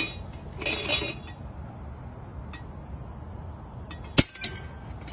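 HiO golf hole cutter set down on a putting green: a brief rustle about a second in, then a single sharp metallic clink about four seconds in and a fainter knock just after it, over a steady low background noise.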